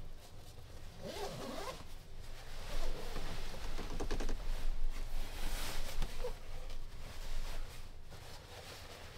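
Sleeping bag zipper being pulled, with the rustle of the bag's nylon shell as a person settles into it.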